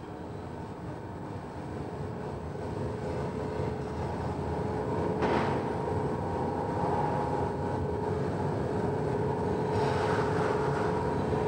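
Steady machinery noise of a factory hall, growing louder, with a low steady hum carrying two held tones. A sudden knock comes about five seconds in.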